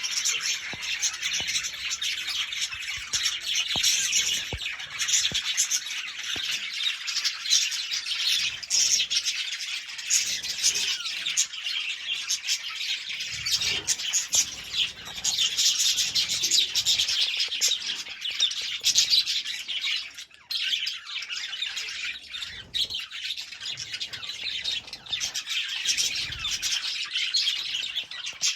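Several budgerigars chattering and chirping continuously, a dense mix of warbles and short squawks.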